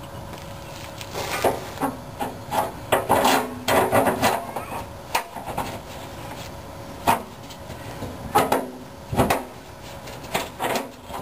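Irregular knocks, clanks and scraping of metal as a steel gas-tank strap and its bolt are worked into place by hand against the underside of the tank.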